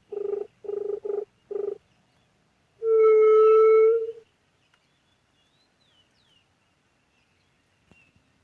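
Juriti call blown on a pio dove whistle: four short low hoots, then one long, loud, steady hoot about three seconds in.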